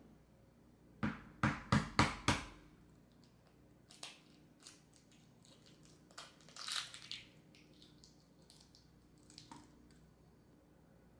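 An eggshell being cracked: five sharp raps in quick succession about a second in, then, a few seconds later, a crackling as the shell is broken open, with a few faint taps after.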